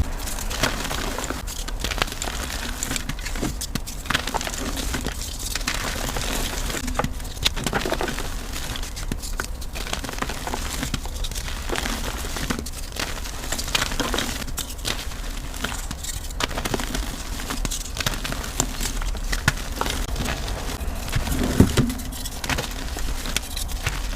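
Chalk being crushed and crumbled: a continuous, irregular run of crunchy crackles and snaps, with one heavier crunch near the end.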